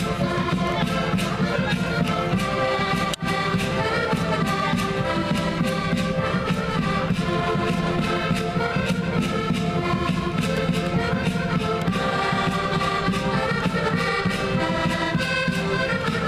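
A group of Portuguese concertinas (diatonic button accordions) playing a traditional folk tune together, with sustained chords over a steady beat.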